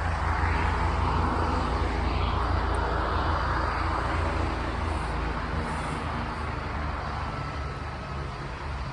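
Aircraft flying overhead: a steady engine drone with a low hum underneath, slowly fading.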